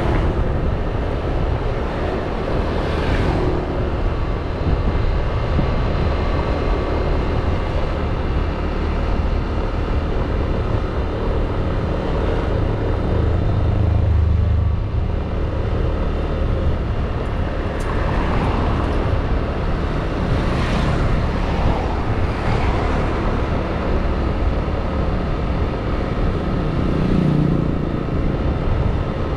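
Road traffic noise heard from a scooter riding through town: a steady rumble of engine and road noise, with a few brief louder swells partway through as vehicles go by.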